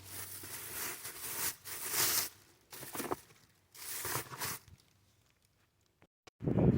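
Rustling and crinkling handling noise in several uneven bursts, then a gap of near silence lasting about a second and a half near the end.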